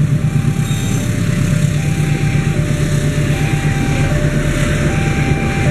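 A railway level crossing's warning alarm sounds a two-tone signal, high and low tones alternating about every three-quarters of a second, while passenger coaches rumble past steadily.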